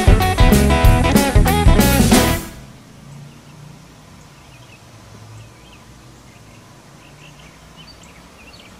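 Blues-rock background music with drum kit and guitar, which cuts off suddenly about two and a half seconds in; after that only a faint background remains.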